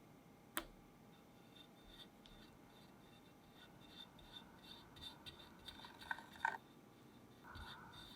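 Faint scraping of a spatula spreading cream cheese cream over a crepe layer, with light clicks as it touches the crepe and plate. A sharp click comes about half a second in, and two louder taps come near the end.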